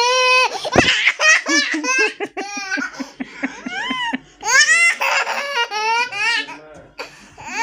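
A toddler laughing out loud in high-pitched belly laughs. The laughter comes in several bouts of quick ha-ha pulses, with short pauses for breath between them.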